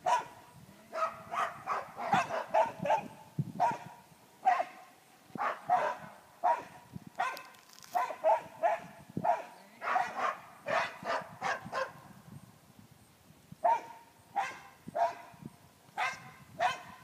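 A dog barking repeatedly: short barks in quick runs, with two brief pauses.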